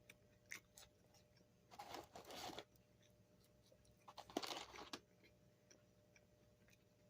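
Faint eating sounds: two short crunching rustles, about two seconds and four and a half seconds in, with a few light clicks between.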